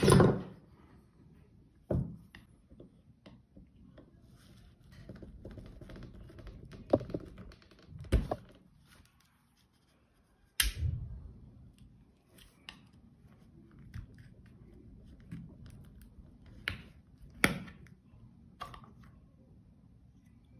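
A flat-blade screwdriver prying the plastic cap off a disposable e-cigarette: scattered sharp clicks and knocks of metal on plastic, the loudest about halfway through, with quieter scraping and handling between them.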